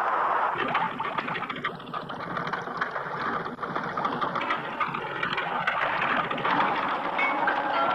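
Cartoon sound effect of a submarine's machinery running: a dense mechanical rattle of quick clicks, with a steady high tone for a couple of seconds about two seconds in.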